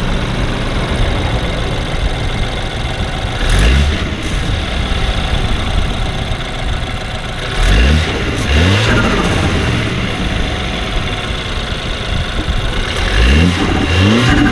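BMW 328i (F30) turbocharged four-cylinder engine idling and revved in four short throttle blips, the pitch rising with each, with loud intake and turbo noise through the newly fitted MST turbo inlet pipe.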